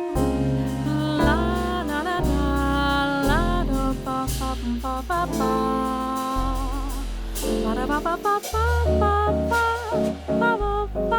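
Jazz ballad played by a small acoustic band: a melodic line of sliding, bending notes over long held double-bass notes, with piano and light cymbal strokes. No sung words.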